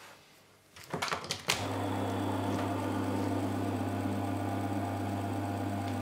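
Capacitor-run single-phase induction motor from a Miele W760 washing machine, powered from the mains through its run capacitor. A few sharp clicks about a second in, then the motor starts and runs unloaded with a steady mains hum.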